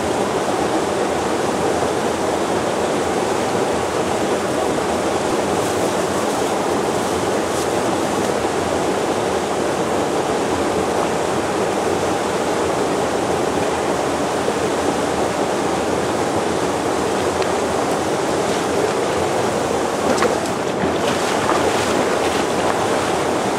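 Mountain stream rushing steadily over rocks, a constant dense water noise, with a few faint clicks near the end.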